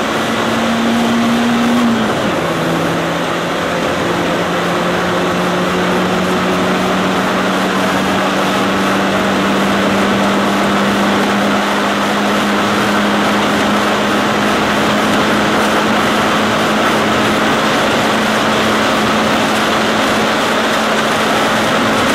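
Mitsubishi Lancer Evolution III's turbocharged four-cylinder engine pulling hard, heard from inside the cabin: about two seconds in its pitch drops on an upshift, then climbs slowly and steadily as the car gathers speed, over a steady rush of road and wind noise.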